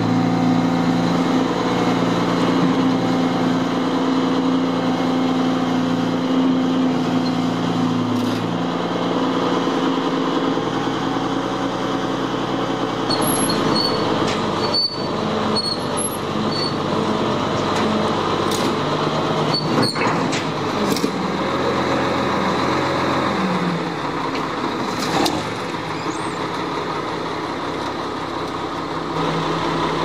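Roll-off truck's diesel engine running to drive its hydraulic hoist while a steel dumpster is lowered off the tilted bed onto the road, the engine's pitch shifting several times. Occasional metal clanks and short high squeals from the container sliding down the rails, mostly in the middle.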